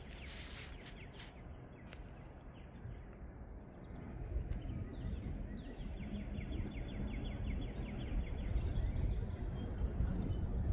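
Freight train's boxcars rolling by at a distance: a low rumble that grows steadily louder, with a quick run of light, rhythmic clicking in the middle.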